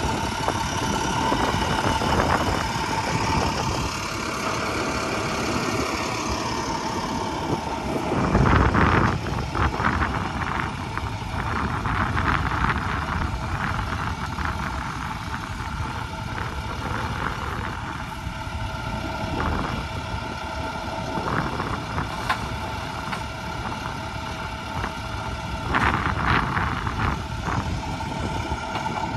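Truck engine running steadily, falling in pitch a few seconds in. About eight seconds in comes a louder burst of noise, followed by scattered clicks and knocks.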